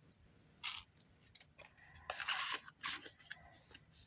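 Packaging rustling and crinkling in a few short bursts as it is handled.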